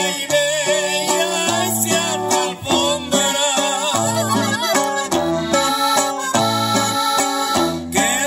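Live norteño band music: an accordion carries the melody over strummed guitar and a stepping bass line.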